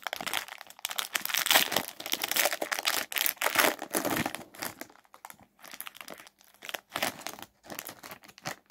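Foil baseball card pack wrapper being torn open and peeled off a stack of cards: dense crinkling and tearing for about the first five seconds, then sparser crinkles.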